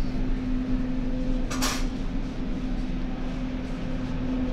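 Steady mechanical hum holding an even pitch, with one short clatter about one and a half seconds in.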